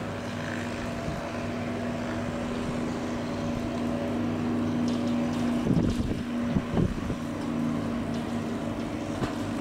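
Airbus A320's CFM56 jet engines running at low power, a steady hum, as the airliner rolls along the runway after landing. A few low thumps of wind hit the microphone about six seconds in.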